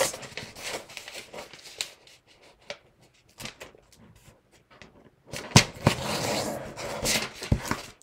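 A square of tissue-foil origami paper being folded and creased by hand: light rustles and taps at first, then a louder crinkling rustle lasting about two and a half seconds in the second half as the crease is pressed across the sheet.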